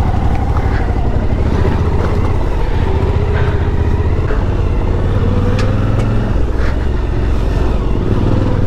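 Suzuki V-Strom adventure motorcycle's V-twin engine running at low speed on a bumpy dirt track, its pitch rising and falling gently with the throttle, with a few short knocks from the ride over rough ground.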